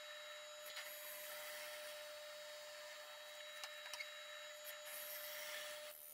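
Benchtop drill press running with a steady whine, its bit boring into a wooden board with a scratchy hiss and a few light clicks.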